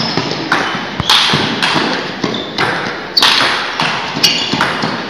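Table tennis balls clicking and knocking off paddles and tables, many quick irregular hits from several rallies at once, echoing in a large hall.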